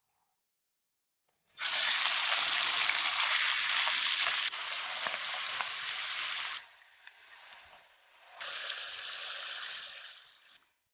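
Diced pork sizzling as it fries in hot oil in a wok. The sizzle starts suddenly about a second and a half in, drops quieter for a couple of seconds past the middle, then comes up loud again before stopping shortly before the end.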